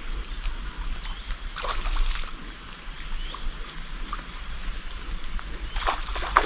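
Outdoor pondside ambience: wind buffeting the microphone with a constant low rumble, under a thin steady high-pitched drone. A few brief knocks and rustles come about two seconds in and again near the end, the last one the loudest.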